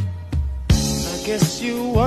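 Music with a steady drum beat, about one hit every 0.7 s, over a bass line.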